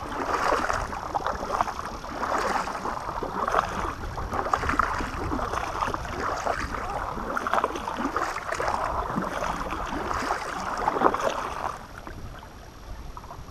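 Kayak paddle strokes dipping and splashing roughly once a second, with water washing along the hull over a low wind rumble on the microphone. The strokes stop near the end.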